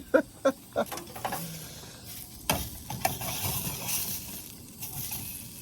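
Food sizzling in a pan on a camp stove, with a few clicks and knocks of a utensil against the pan as the pieces are moved around, one sharper knock about halfway through.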